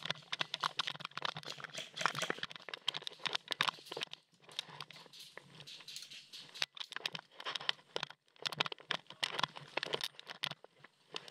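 Irregular crunching and rustling close to the microphone: footsteps on dry dirt and tactical gear brushing against the camera.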